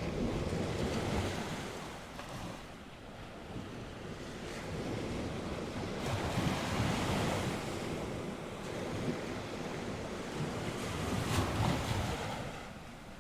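North Sea waves breaking and washing on the shore, swelling and ebbing in slow surges, with wind buffeting the microphone.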